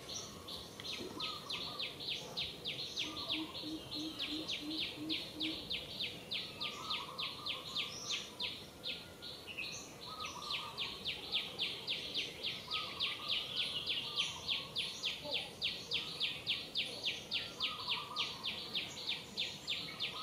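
Outdoor wildlife chorus dominated by an unbroken, high-pitched rhythmic chirping at about four pulses a second. Scattered lower bird calls come over it, and a short run of low pulses sounds about three to five seconds in.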